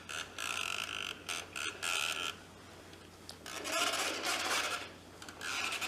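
A plastic toy being handled: quick clicking and rattling for about two seconds, a short lull, then rubbing and knocking of plastic pieces.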